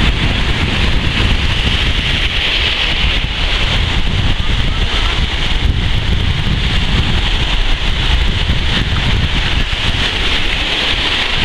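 Strong onshore wind buffeting the microphone over the steady rush of sea waves breaking on the shore.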